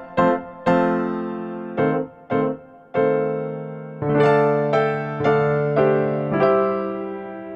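Background piano music: single notes and chords struck and left to fade, with longer held chords in the second half.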